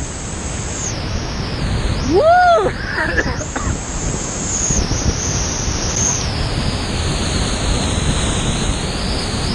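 Whitewater rushing steadily around a kayak running a steep, foaming slide, heard from a camera on the boat. About two seconds in, a short cry rises and falls in pitch over the rush of water.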